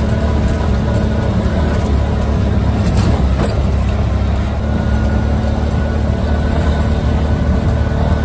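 Steady low engine and road rumble of a motor vehicle running.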